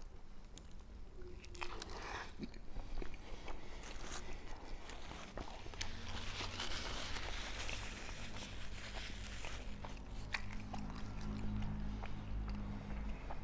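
Close-miked biting and chewing of a chilaquiles torta, a bread roll filled with tortilla chips in salsa verde and a breaded chicken cutlet, with irregular crunches and wet mouth sounds.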